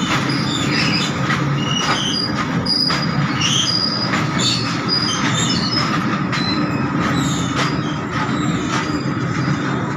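Freight train wagons rolling past at close range: a steady rumble of steel wheels on the rails, with irregular clacks and many short, high-pitched wheel squeals.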